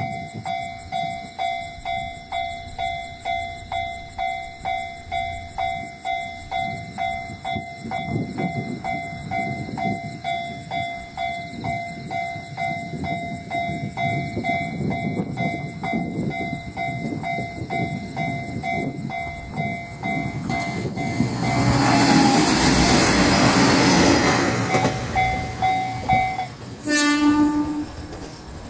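Japanese level-crossing warning bell dinging about twice a second while a diesel limited express train approaches with a rising rumble and passes loudly. Near the end the train gives one short horn blast, and the bell stops.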